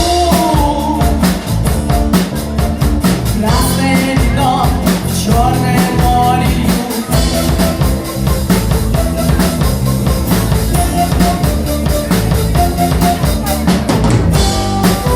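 Rock band playing live, with a drum kit keeping a steady beat under sustained pitched instruments.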